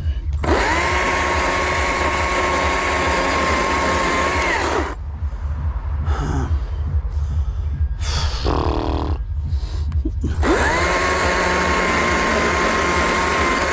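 A power carving tool's motor runs up twice to a steady high whine, each run lasting about four seconds before winding down. Between the runs there are quieter irregular working sounds, and a low rumble sits underneath throughout.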